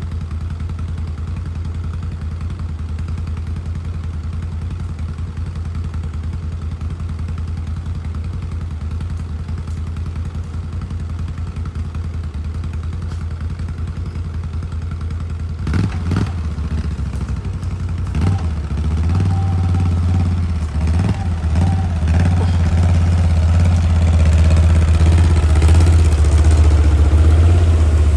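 Chainsaw engine running at a steady low speed. About fifteen seconds in it revs up, louder and more uneven, with clattering as it starts working.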